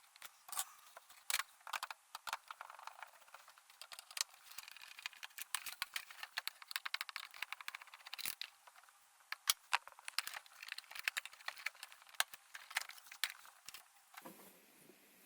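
Plastic clicks, rattles and crinkling as a washing-machine electronic control unit is opened up by hand, with a dense run of quick ticks in the middle.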